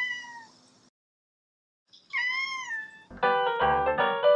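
A cat meows twice: a short call at the start, then a longer one about two seconds in that rises and falls in pitch. Piano music starts near the end.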